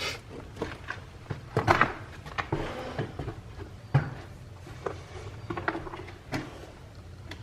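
Scattered light knocks and short scrapes of tools and materials being handled, at irregular moments with low room noise between them.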